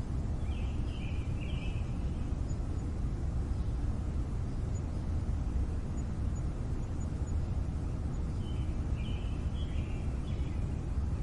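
Steady low rumble of city traffic, with short bursts of bird calls about a second in and again near the end.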